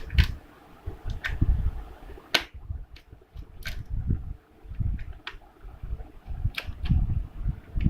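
Plastic laptop parts being handled during disassembly: scattered sharp clicks and taps, about eight of them, the loudest a little over two seconds in, over low, uneven bumps of handling.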